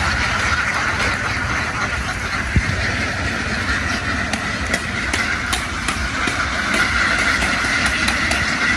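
A large flock of domestic ducks quacking together in a dense, continuous din, over a low rumble.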